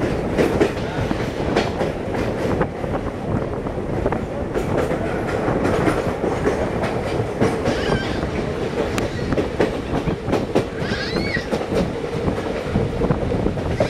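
Passenger train running at speed, heard from an open coach door: a steady rumble and rattle with quick clicks of the wheels over the rail joints.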